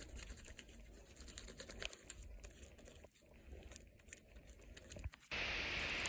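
Fluffy slime being kneaded and stretched by hand: faint sticky clicks and crackles. About five seconds in, a steady hiss starts suddenly.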